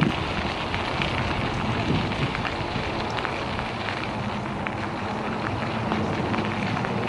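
Bicycle tyres rolling over a gravel rail-trail: a steady crackle with many small scattered clicks, and some wind on the microphone.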